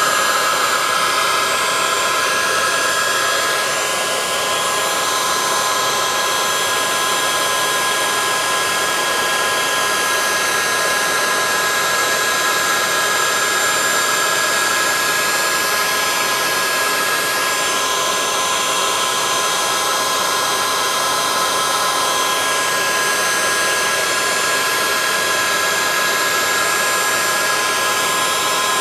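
Heat gun running steadily, blowing hot air with a constant motor whine, to shrink heat-shrink tubing over a clutch cable's outer jacket.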